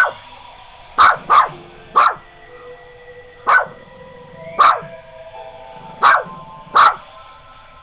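A dog barking: about eight short, sharp barks at uneven intervals.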